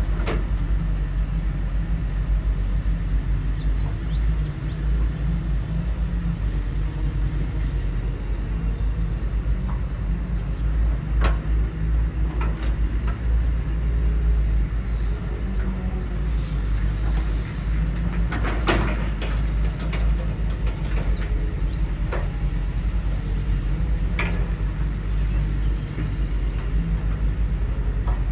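Steady low rumble of running machinery, with a few sharp knocks and clacks, the loudest about two-thirds of the way through.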